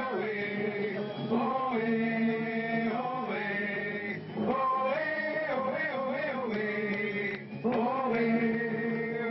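A man's voice chanting into a microphone over a public-address system, holding long notes in phrases of a second or two, with short breaks between them.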